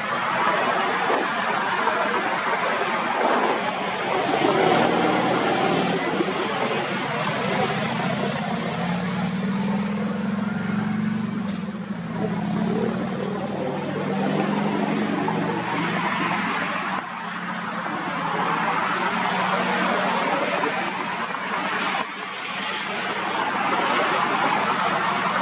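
Road traffic: passing vehicles as a continuous noise that swells and eases, with a low engine hum in the middle.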